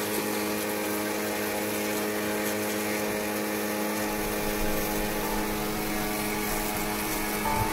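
Pressure washer running steadily: its motor and pump hum at one even pitch under the hiss of the water jet blasting dirt off motorcycle engine side covers.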